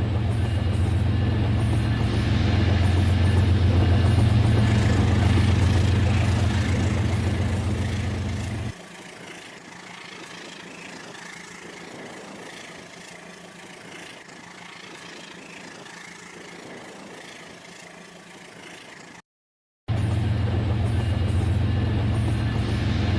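Battery-powered Rail King toy train's motor and wheels rumbling steadily on plastic track, a low buzzing drone. It drops suddenly to a much quieter running noise about nine seconds in. It cuts out for a moment near the end, then returns at full level.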